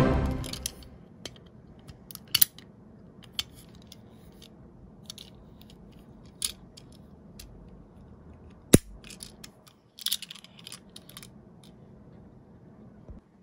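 Light clicks and taps of a small die-cast toy fire van being handled in the fingers, its rear hatch flipped open and shut. A louder knock with a ringing tail comes right at the start and fades over about a second.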